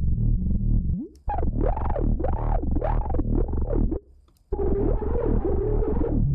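A synth bass loop played through the FabFilter Volcano 3 filter plug-in with its resonance turned high, so the filter rings as a pitched tone that sweeps up and down in repeated arches over the pulsing bass. Playback cuts out briefly about a second in and again around four seconds. After the second restart the ringing tone holds lower and wavers.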